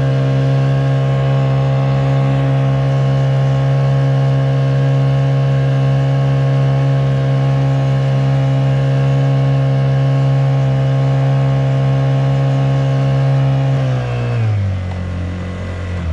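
Honda GX50 50cc air-cooled four-stroke outboard driving a kayak, running steadily at high throttle. About fourteen seconds in it is throttled back, and its pitch falls in steps to a lower speed.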